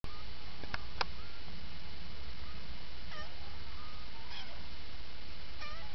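Newborn kittens mewing: short, thin, high-pitched calls, a few faint ones and then three clearer ones about a second and a half apart. Two sharp clicks come about a second in.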